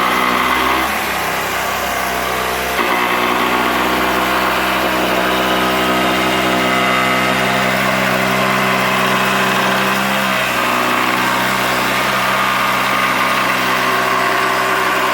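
Cordless jigsaw motor running steadily at speed, its pitch shifting a little about three seconds in and again about ten seconds in.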